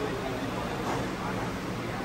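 Steady background noise of a busy restaurant dining room, with faint indistinct chatter.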